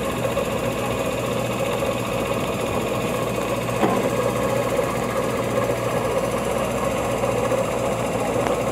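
A motor running steadily with an even mechanical hum, and a single knock a little under four seconds in.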